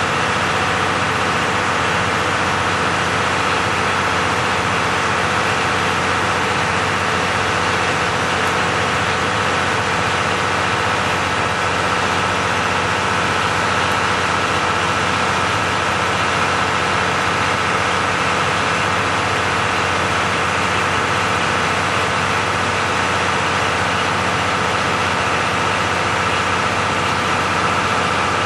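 KiHa 181 series diesel railcar's DML30HSC V12 diesel engines idling steadily at a standstill, a constant low engine note with a steady high-pitched tone above it.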